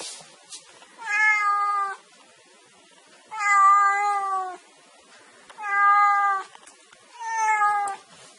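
A domestic cat meowing four times, each call about a second long and held at a fairly even pitch, with roughly a second's pause between calls.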